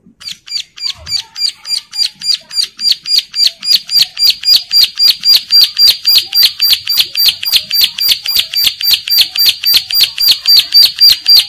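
Bar-winged prinia (ciblek) calling in breeding condition: a fast, even run of sharp high notes, about four a second, each falling slightly in pitch. It starts about half a second in, builds in loudness over the first few seconds and then holds steady.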